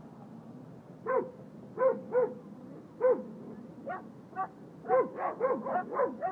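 Small dog barking at sea lions in short, high yaps, about a dozen of them, coming faster and closer together in the last second and a half.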